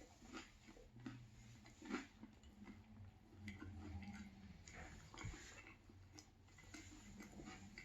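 Quiet chewing of a banh mi, with scattered small crackles and clicks from the crusty baguette and mouth.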